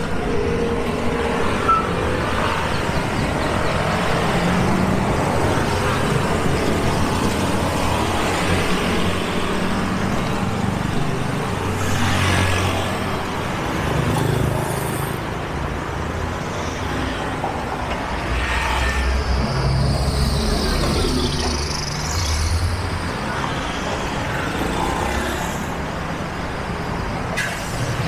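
Street traffic: a steady wash of road noise with vehicle engines passing, the engine sound swelling twice, about midway and again a little later.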